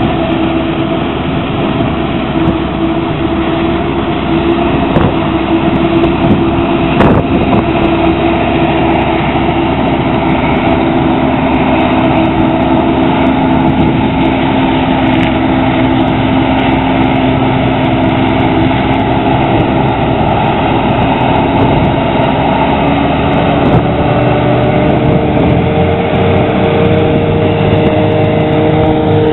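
Forage harvester chopping maize, with a tractor and trailer running alongside: a loud, steady machinery drone with a humming note that shifts higher near the end.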